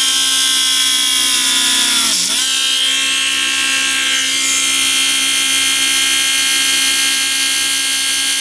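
Small handheld 12-volt Drill Master rotary tool running steadily with a high whine while drilling a hole through a baked polymer clay bead. About two seconds in, the pitch dips sharply and then recovers.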